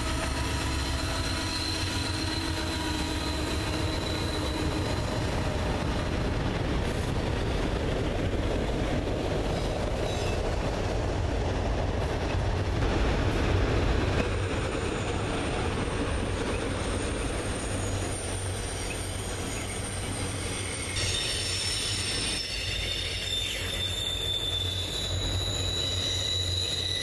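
A long string of autorack freight cars rolling past on a curve: a steady rumble of steel wheels on rail, with wheel flange squeal ringing in high, thin, steady tones that come and go.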